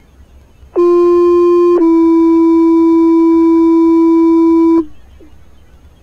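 Fire dispatch two-tone sequential paging tones over a scanner radio: one tone for about a second, then a slightly lower tone held for about three seconds, cutting off sharply. This is the tone-out that alerts a fire station's pagers to a call.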